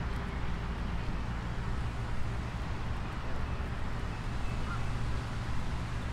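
Steady outdoor city ambience: an even low rumble of distant traffic, with a few faint short high chirps.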